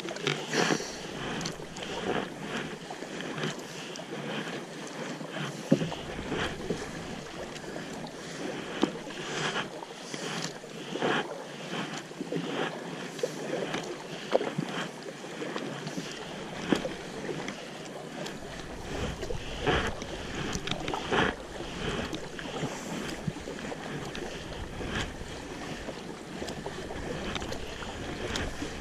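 A kayak moving through choppy river water: a steady rush of water with frequent irregular splashes against the boat and paddles. Wind rumbles on the microphone now and then.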